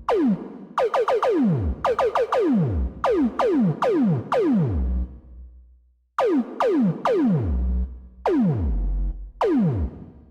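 Synthesized sound effect from a remake of the Symphogear pachinko jackpot sound: sharp pitched hits, each sweeping steeply down in pitch, repeated in quick groups, some over a low bass rumble. It breaks off for a moment about six seconds in, then starts again.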